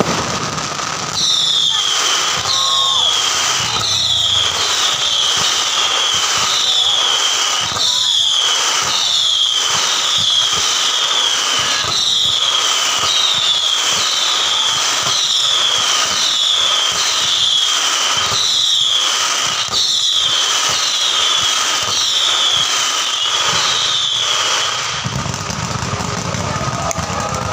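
Fireworks going off: dense crackling pops with a string of high, falling whistles about once a second. The whistles and pops stop shortly before the end, when a low rumble like traffic takes over.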